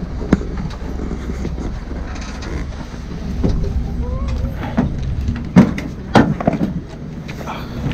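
Pickup passenger truck's engine running at a standstill, a steady low rumble, with a few sharp knocks and thumps as people climb down from its rear bed onto a plastic stool; the loudest knocks come a little past halfway. Brief voices are heard now and then.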